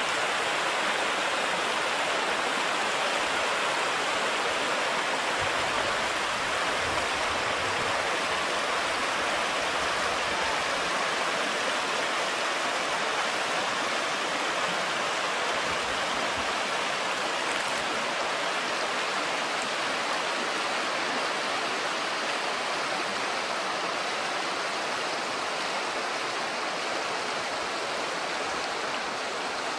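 Shallow river flowing over stones and gravel: a steady rush of running water.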